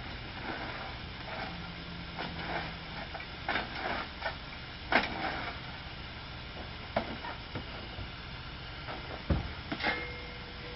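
Steam hissing steadily from a steam locomotive, Climax geared engine No. 3, with scattered metallic knocks and clanks, and a short steady tone in the last second.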